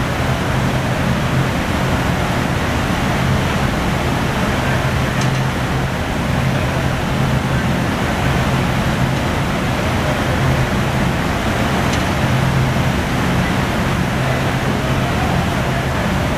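Steady, loud roar of a glassworks floor, the furnaces and large pedestal fans running, over a constant low hum.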